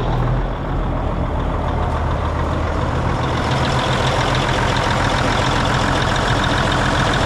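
1988 Mack DM690S water truck's turbocharged diesel engine idling steadily, heard up close at the open engine bay.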